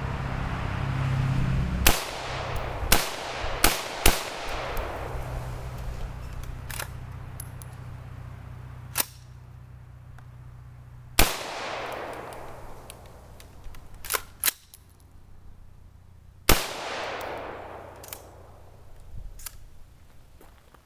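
AR-15 rifle firing steel-cased Monarch .223 ammunition: a quick string of four shots, then single shots after long pauses, each with a long echoing tail. Quieter clicks come between the shots.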